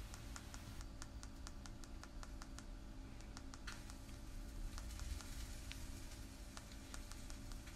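Faint, quick clicking taps on a tile floor, about three or four a second, thinning out after about four seconds, over a low steady hum.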